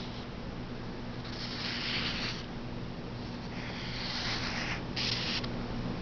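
Felt-tip marker scratching along paper in a few strokes of about a second each, over a steady low hum.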